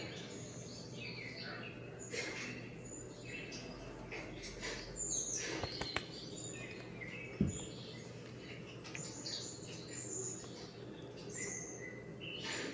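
Birds chirping, with short high calls scattered throughout, and one brief low thump about seven seconds in.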